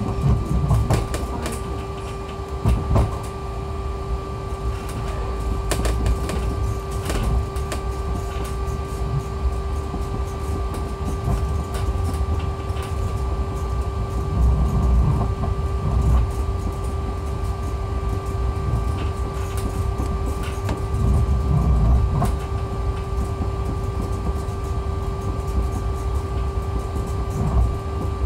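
Heathrow ULTra pod, a small battery-electric rubber-tyred personal rapid transit car, running along its concrete guideway, heard from inside the cabin. A steady whine sits over a low rumble that swells and eases, with occasional knocks and rattles.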